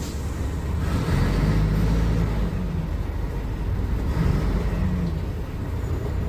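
Diesel engine of a Mercedes-Benz O500UA bi-articulated BRT bus running under way, its low drone swelling about a second in and again about four seconds in as it pulls.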